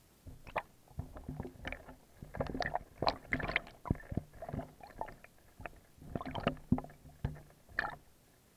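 Catfish bumping and mouthing an underwater camera housing: a busy, irregular run of knocks and taps, thickest in the middle and easing off briefly before a last flurry.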